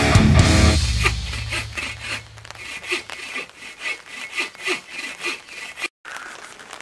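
Hand saw cutting through a dead log in regular back-and-forth strokes, about two a second, until it stops near the end. Loud rock intro music fades out in the first second.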